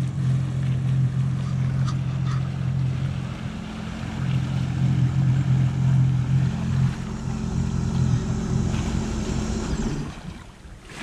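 Personal watercraft engine running steadily under way, with water and wind noise; the engine note falls away about ten seconds in.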